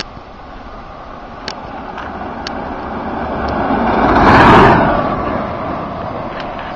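Electric-converted 1947 Cushman scooter with a 48-volt hub motor passing close by: a rush of tyre and running noise with no combustion engine, swelling to a peak about four and a half seconds in and then fading.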